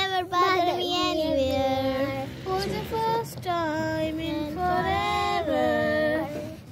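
A child singing a melody without words that the recogniser could catch, holding and sliding between notes in a few phrases.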